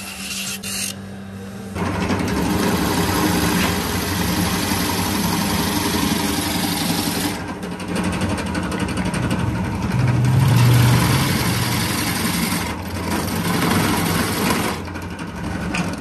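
Drill press running, its bit routing out the bowl of a wooden spoon blank held in a jig: a loud, steady machine and cutting noise that eases off briefly a few times as the cut lightens. For the first couple of seconds only a quieter, steady motor hum from a sanding drum is heard.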